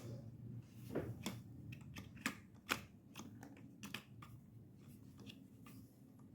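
Quiet, irregular light clicks and taps from handling the microwave's cooling fan assembly, about a dozen spread unevenly.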